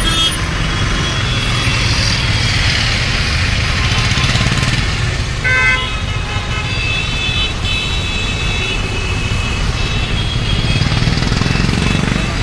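Traffic jam: a steady low engine rumble with vehicle horns honking. A cluster of horns sounds about five and a half seconds in, and more horns follow from about seven to nine seconds.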